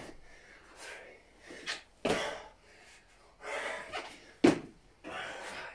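A man's heavy, forceful breathing under exertion during a bodyweight exercise: about five short, hard exhales, roughly one every second, two of them sharper and louder than the rest.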